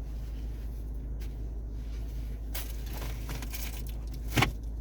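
A steady low hum with faint background noise, and one sharp click or knock near the end.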